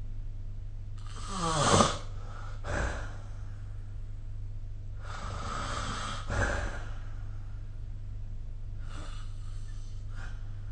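A sleeping person snoring: three breaths, each a rasping snore followed by a shorter exhale. The first snore is the loudest and drops in pitch, and the last breath is faint.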